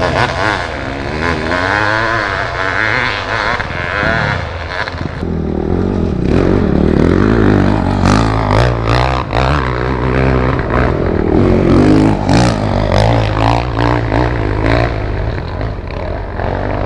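Motorcycle engine running under way on a rough off-road trail, getting louder about five seconds in, with frequent clattering and scraping knocks over it.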